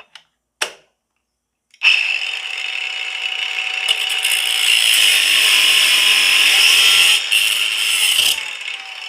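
Cordless brushless angle grinder cutting a solid 1-inch steel shaft. The high grinding starts just under two seconds in and gets louder, with one short break, then drops to a lighter, quieter sound near the end.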